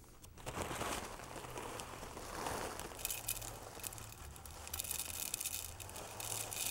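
Silica gel crystals pouring from a plastic bag into a clear plastic dryer tube, a fine rattling patter mixed with the crinkle of the bag. The patter grows denser about three seconds in as the flow picks up.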